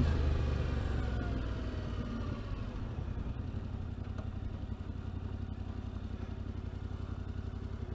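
Yamaha Ténéré 700's parallel-twin engine on the overrun with the throttle shut, its note falling as the bike slows. After about three seconds it settles into a steady low, even idle.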